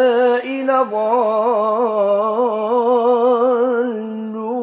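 A man's voice chanting Qur'an in a melodic Maghrebi tajweed style, holding a long drawn-out vowel (a madd elongation) on a wavering, ornamented pitch. About half a second in there is a brief break and shift of pitch, then he holds the note again.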